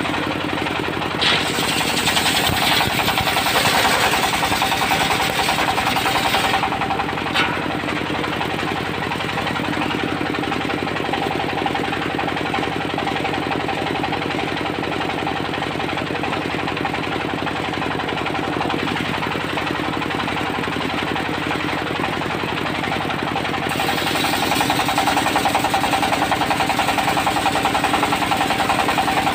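Diesel engine of a portable circular-saw sawmill running steadily with a fast knock. A higher hiss rises over it from about a second in to about six seconds, and again from about 24 seconds on, when the whole sound gets louder.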